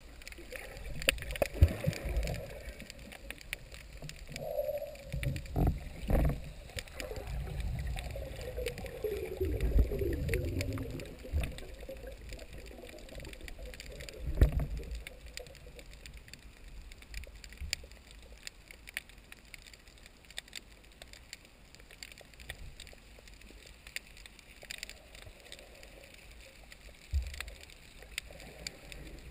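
Underwater sound: low rumbling and gurgling water movement, heaviest in the first half and easing after about fifteen seconds, with scattered sharp clicks throughout.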